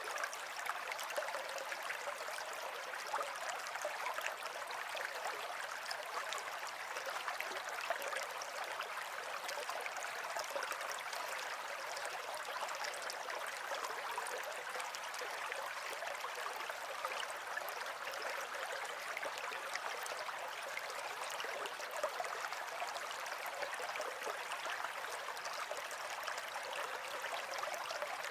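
Water running in a stream, a steady babbling and splashing with many small flickers of sound and almost no deep rumble.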